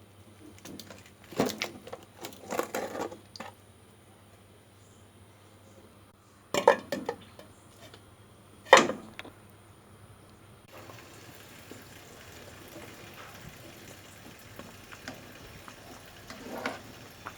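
Kitchen cooking sounds: a handful of knocks and clatters of utensils against pots or dishes, the loudest two near the middle. Then a steady hiss of liquid cooking in a pan, with a few faint clicks.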